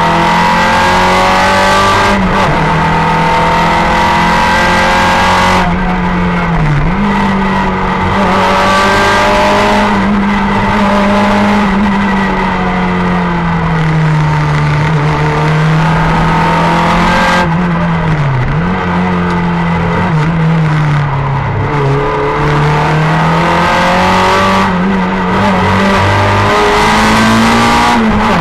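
Simca 1000 rally car's rear-mounted four-cylinder engine heard from inside the cabin, driven hard on a stage: it revs up and down continuously as the driver shifts and lifts for corners, with sharp drops in pitch about six seconds in and again near eighteen seconds.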